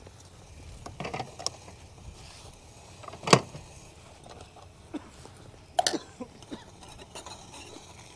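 Several sharp knocks and clinks of cups and a pot being handled while making coffee, the loudest a little past three seconds in, over a faint steady hiss.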